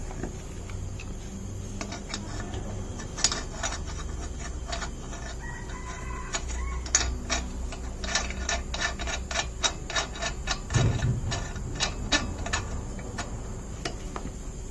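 Irregular metal clicking and clinking, often several a second, as wheel nuts are fitted onto the spare wheel's studs and turned on crosswise.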